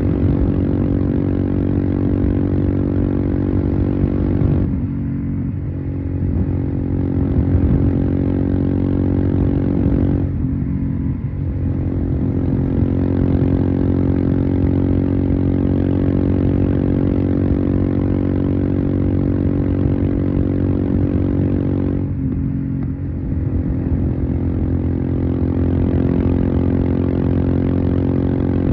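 Royal Enfield Himalayan's single-cylinder engine running through an aftermarket Devil Pro Evolution exhaust, held at a steady throttle while riding. The note dips briefly three times, about five, ten and twenty-two seconds in, as the throttle is eased off.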